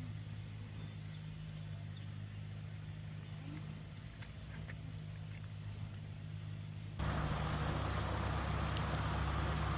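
Steady low engine-like hum. About seven seconds in it turns abruptly louder, with a rushing noise added.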